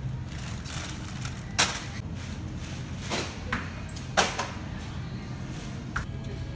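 Supermarket background noise with a steady low hum, broken by several sharp clacks and knocks a second or more apart.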